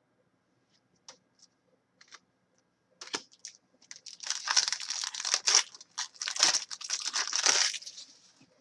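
Crinkling, rustling plastic and paper as trading cards are handled, with a few faint clicks at first and a loud stretch of crinkling from about three seconds in until near the end.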